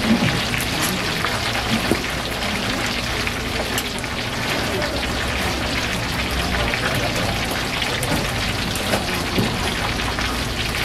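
Hot oil in a wok deep fryer crackling and sizzling steadily as battered squid fries.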